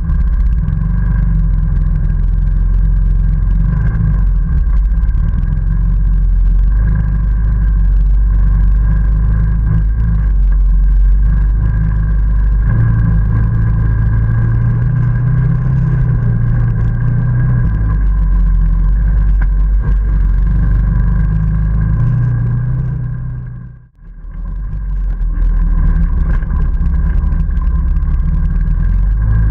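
ATV engine running under load through mud, its low pitch rising and falling with the throttle. The sound briefly fades nearly to silence and comes back about three-quarters of the way through.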